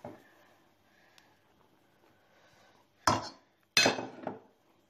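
Two sharp clatters of crockery about 0.7 seconds apart near the end, the kind made by a mixing bowl knocking on a hard surface. Before them, only faint soft sounds of hands working dough into flour.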